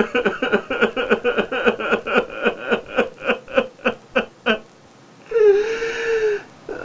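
A man sobbing in grief: a quick run of choked, catching breaths, about five or six a second, for the first four and a half seconds, then after a short pause one long drawn-out wail.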